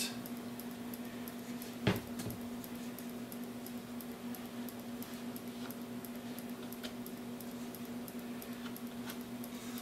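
A single sharp knock about two seconds in as a plastic glue bottle is set down on the plywood, over a steady low hum, with faint handling sounds of a wooden cleat being lined up.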